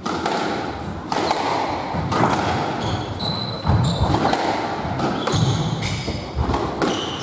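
Squash rally: the ball strikes sharply off rackets and walls about once a second. Players' court shoes squeak in short high chirps on the wooden floor.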